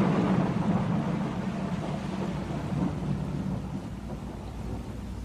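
Thunder rumbling and slowly dying away over steady heavy rain.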